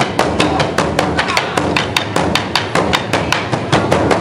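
Traditional Burundian drums, large wooden drums with hide heads, beaten with sticks by a troupe in a fast, even rhythm of about five strokes a second.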